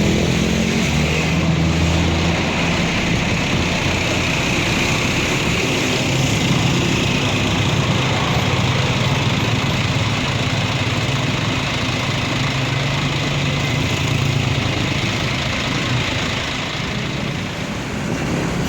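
Tour bus diesel engine running steadily at low revs close by, a continuous low hum with slight shifts in pitch.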